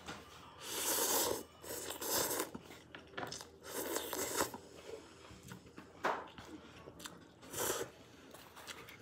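A person slurping and chewing instant ramen noodles eaten with chopsticks, in about five separate slurps with quieter chewing between.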